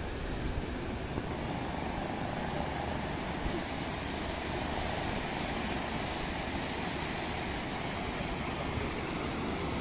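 Steady wash of sea surf breaking on a beach, with wind noise.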